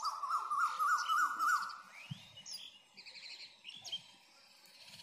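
Birds chirping outdoors. A rapidly wavering whistle-like call rises and drops repeatedly for the first second and a half, then a rising call and scattered high chirps follow.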